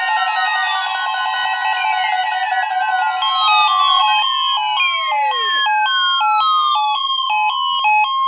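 Several NOAA weather radios alarming at once for the weekly warning-alarm test. A steady high alarm tone runs under a tangle of electronic alert sounds: repeated falling sweeps, and from about three seconds in, a rapid beeping that alternates between two pitches.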